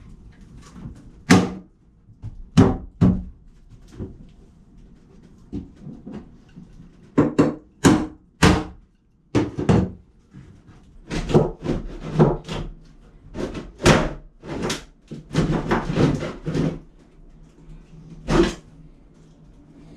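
Demolition work in a small boat cabin: a long run of irregular knocks, thuds and bangs as old bathroom fittings and panels are pried loose and pulled out.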